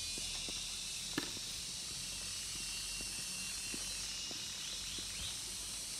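Footsteps on the wooden planks of a rope suspension bridge: scattered light knocks and clicks, a sharper one about a second in, over a steady high hiss.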